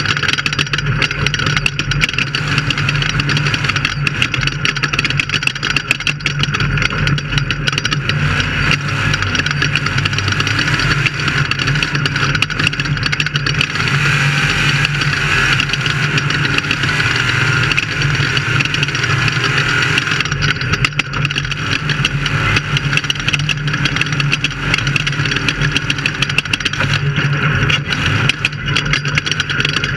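Off-road race vehicle's engine running steadily under load, with constant noise and many small knocks and rattles from a rough ride.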